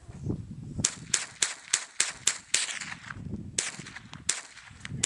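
.22 LR firearm firing decades-old rimfire rounds: a quick string of about seven sharp cracks, roughly three a second, starting about a second in, then two or three more shots spaced further apart.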